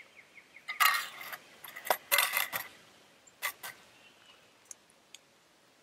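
Shell of a soft-boiled egg being cracked and picked open: a few sharp clicks and taps, with two short crackling scrapes about a second in and about two seconds in.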